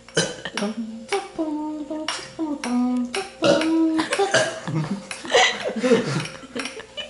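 Several long, low burps, one after another between about one and four seconds in, over sharp taps on dishes keeping a beat. Voices and giggling follow.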